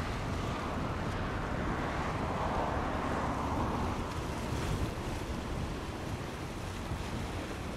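Twin Pratt & Whitney PW123AF turboprop engines of a Bombardier CL-215T/415 water bomber flying low overhead: a steady rushing drone that swells about two to four seconds in and eases off toward the end.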